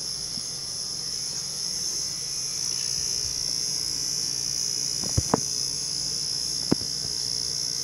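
Electric hair clippers running with a steady high whine over a low hum as they trim sideburns and beard, with three sharp clicks about five to seven seconds in.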